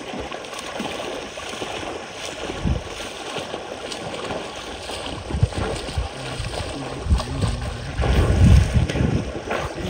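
Wind buffeting the microphone in uneven gusts over a steady hiss, gusting hardest near the end.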